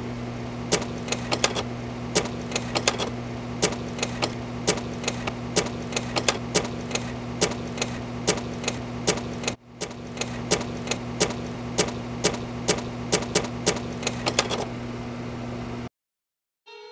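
Irregular sharp clicks, two or three a second, over a steady low electrical hum, with a brief break about nine and a half seconds in. The clicks stop a little before the hum, which cuts off suddenly near the end.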